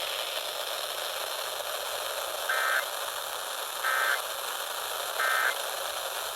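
Weather-radio receiver hiss with three short digital data bursts about 1.3 seconds apart: the SAME end-of-message tones that close an emergency alert broadcast.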